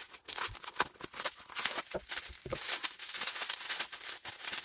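Cardboard and bubble-wrap packaging rustling and crinkling as it is pulled open by hand: a dense, irregular run of crackles.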